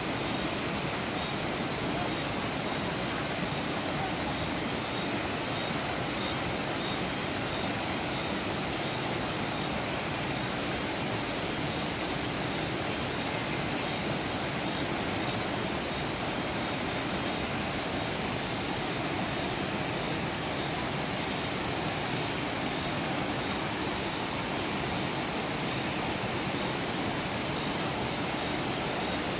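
Steady rush of a fast-flowing river, an even noise that holds without a break.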